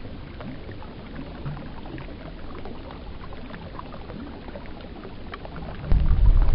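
River water flowing and rippling around a wading angler's legs, sprinkled with small trickling ticks. Near the end a loud low rumble comes in.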